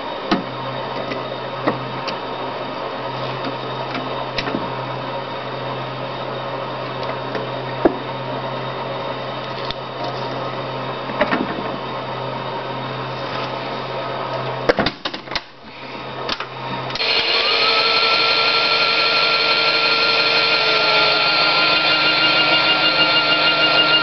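Small electric motor of a toy front-loading washing machine humming steadily, with scattered clicks and knocks of handling; the hum stops about 15 s in after a cluster of sharp clicks. About two seconds later a melody of sustained tones starts and carries on.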